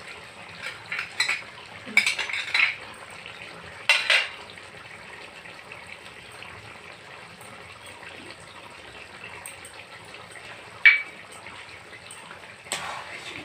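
Kitchen utensils scraping and clinking as poppy seed paste is scraped out of a glass bowl into a metal kadai of curry. There are a few short scrapes in the first four seconds and one sharp clink about eleven seconds in.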